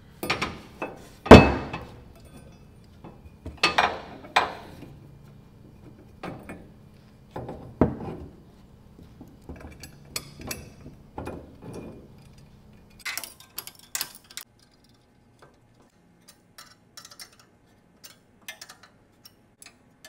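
Scattered metal clinks and knocks of bolts, hand tools and a steel exhaust header as the header and a new gasket are fitted and bolted onto a riding mower's engine block. The loudest knock comes just over a second in; the clicks after about two-thirds of the way through are lighter and sparser.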